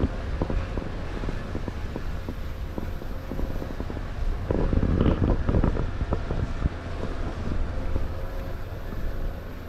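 Car driving on a rough road: a steady low rumble with frequent knocks and rattles, louder for a second or so about five seconds in.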